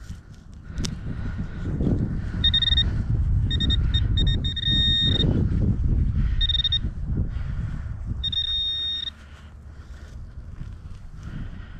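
A handheld metal-detecting pinpointer beeps with a high, steady tone in about five bursts of uneven length as it is moved over a metal target in the dug hole. Loud low rustling and scraping of soil being dug runs under it and drops off about three-quarters of the way through.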